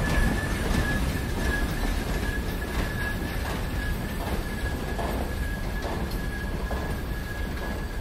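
Freight train rolling with its brakes screeching in one steady high-pitched squeal over a low rumble of the wheels, with faint clacks of wheels over rail joints under a second apart.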